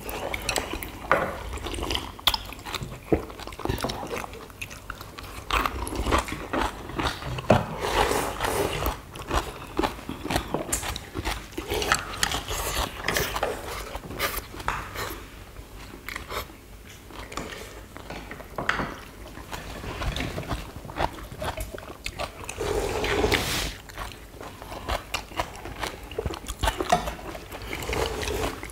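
Several people eating pollack stew: slurping hot broth from spoons and bowls, chewing, and chopsticks and spoons clicking against ceramic bowls.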